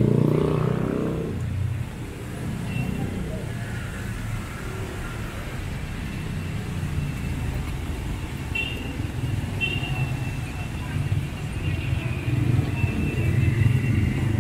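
City street traffic: a vehicle passes close and loud at the start, then a steady low rumble of traffic, with two short high-pitched tones about nine and ten seconds in.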